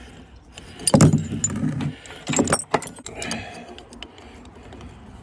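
Metal clinks and rattles of a two-jaw puller being handled on a rusty V-belt pulley as it slides off the engine shaft, with louder knocks about a second in and again around two and a half seconds.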